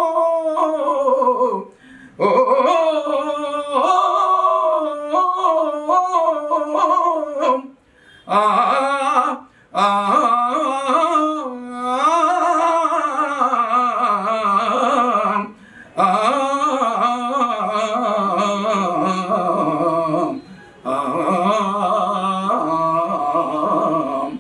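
A man singing a Telugu padyam in the drawn-out stage-drama style, holding long wavering vowels with no clear words. He breaks off for breath every few seconds.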